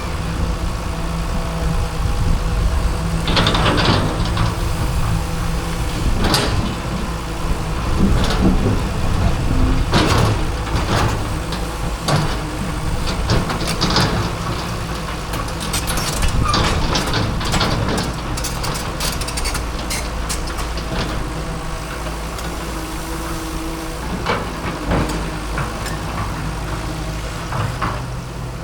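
Hydraulic excavator's diesel engine running steadily under load, with repeated sharp knocks, cracks and scraping as its bucket breaks up a cement fence.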